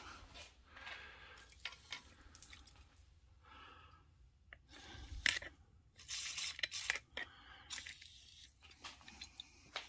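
WD-40 aerosol can spraying penetrating lubricant through its straw onto exhaust bolts, hissing in a few short bursts.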